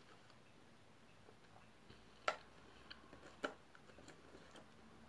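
Near silence broken by two sharp clicks about a second apart, with a fainter one between them, from a metal fork working at a fruit tart in a clear plastic container.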